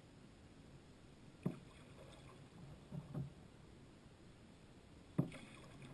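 Kayak paddle strokes in still water: soft dips and drips, with two sharper, louder strokes, one about a second and a half in and one about five seconds in.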